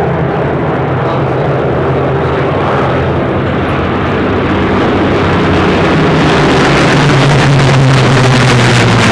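A formation of Spitfires' piston engines running together in a steady hum, growing louder and brighter over the last few seconds as the formation comes overhead.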